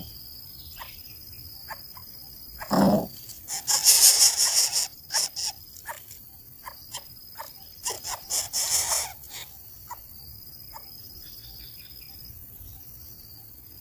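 Nestling birds begging for food in the nest: two bursts of high, rapidly repeated calls, about four seconds in and again about eight seconds in. A dull thump comes about three seconds in, and scattered small clicks run between the bursts.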